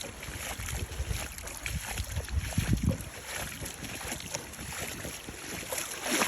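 Wind gusting on the microphone over water lapping and splashing around a kayak being paddled.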